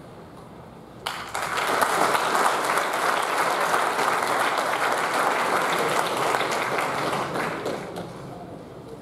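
A crowd applauding, breaking out suddenly about a second in and dying away near the end.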